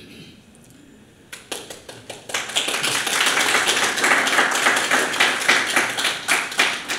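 Audience applauding. It starts thinly about a second and a half in, swells into full applause within a second, and dies away near the end.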